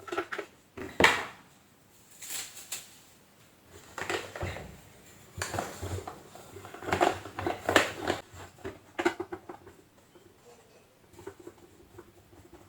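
Irregular knocks, clicks and scraping of vacuum cleaner parts being handled while the motor is taken out, with the loudest knock about a second in and a cluster of clatter around seven to eight seconds.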